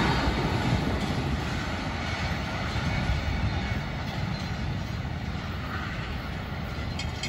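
Rumble of a freight train's cars rolling away down the track after the tail end clears the crossing, fading gradually.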